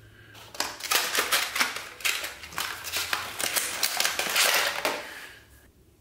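Rapid, irregular plastic clicking and crinkling as red press-on nails are handled in their clear plastic tray and cardboard box, stopping shortly before the end.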